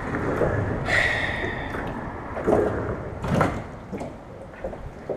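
Knocks and rattles of a fishing rod and reel being handled in a small metal boat: several sudden bumps, with a short high whir about a second in.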